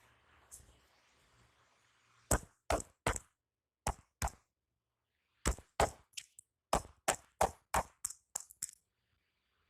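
Percussive massage strokes: the masseur's hands striking the body in quick, sharp slaps, about fifteen in all, in uneven runs of two or three with short pauses between.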